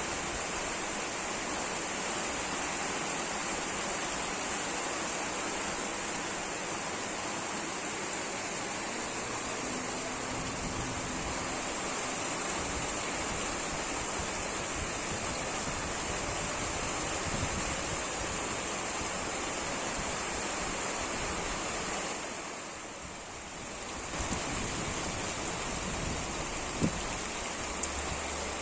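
Steady rain blown by wind, a continuous even hiss that eases briefly about three-quarters of the way through, with a couple of sharp taps near the end.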